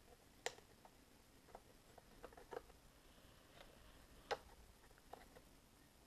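Faint scattered clicks and taps of laptop RAM modules being handled and slid into a MacBook Pro's memory slots, with two sharper clicks about half a second in and a little after four seconds.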